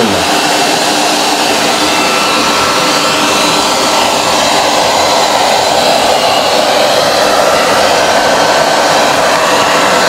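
ILIFE V5 robot vacuum cleaner running in its circular spot-cleaning mode, its suction motor giving a loud, steady whir.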